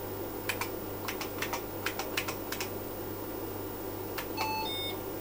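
Typing on the IBM PC XT's 83-key Model F keyboard: a quick run of about a dozen sharp keystrokes, then a single key press. A brief electronic beep of a few short tones at different pitches follows near the end, over the steady hum of the computer's fan.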